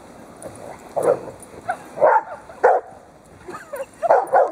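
Dogs barking in play: several short, separate barks, starting about a second in and coming thickest in the last second or so.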